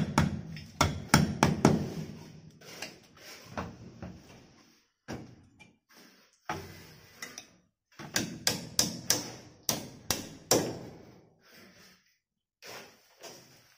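Hammer striking repeatedly: a quick run of blows, about three a second, for the first two seconds, then scattered weaker knocks and another run of blows from about eight to eleven seconds in.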